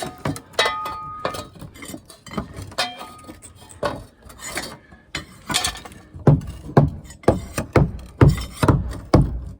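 Light metallic clinks with brief ringing, then a steady run of heavy knocks about twice a second, as a foundation panel that is slightly too tall is knocked into place.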